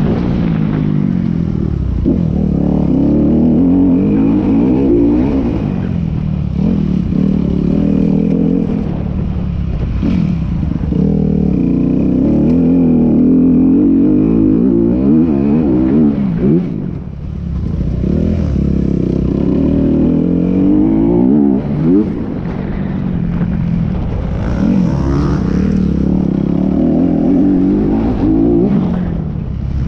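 Motorcycle engine running under way, its pitch climbing repeatedly and dropping back as it accelerates through the gears, with a brief dip about halfway through as the throttle is closed.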